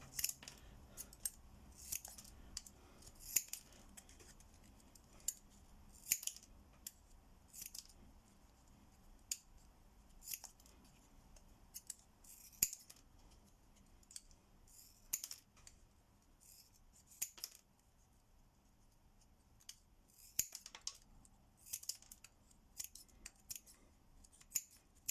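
Scissors snipping through thin plastic sheet to trim a home-made washer: a long series of short, sharp cuts at irregular intervals of about a second, with a brief pause a little past the middle.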